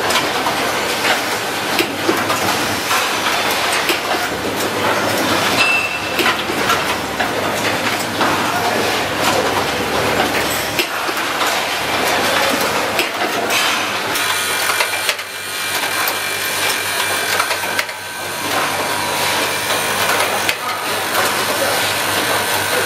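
Automatic switch assembly line running: a steady mechanical clatter with many short clicks from its working stations.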